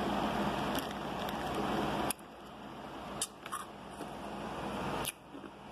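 A person drinking from a bottle: sips and swallows with small wet mouth clicks. Underneath is a steady hum and hiss that cuts out sharply about two seconds in, then swells back and cuts out again near the end.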